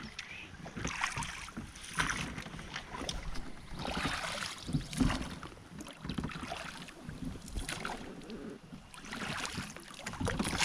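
Water splashing and sloshing in uneven swishes, with no steady engine tone.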